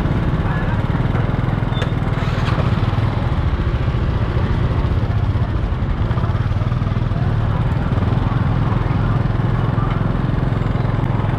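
Motorcycle engine idling steadily, with faint voices and market chatter over it.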